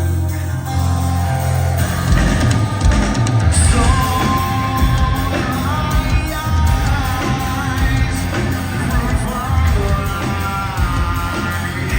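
Live rock band playing through a loud club PA: sustained low guitar and bass, with the full band and drums hitting harder about two seconds in, and a sung lead vocal over it.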